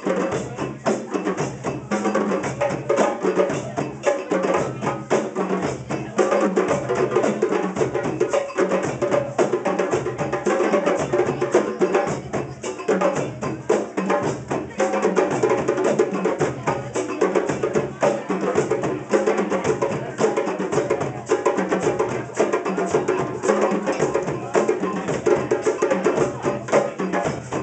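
A djembe ensemble playing a continuous fast rhythm of hand strokes over dunun bass drums struck with sticks, whose low pattern repeats steadily underneath.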